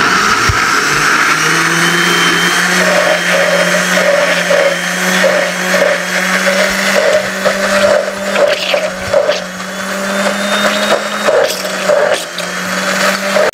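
Electric blender running steadily, grinding peeled garlic cloves in cooking oil into a smooth paste.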